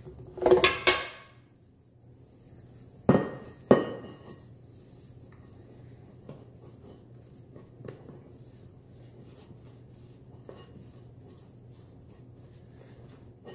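Stainless steel stand-mixer bowl being handled and scraped with a spatula: two sharp metallic clanks with a short ring about three seconds in, then quieter scraping and light taps against the bowl.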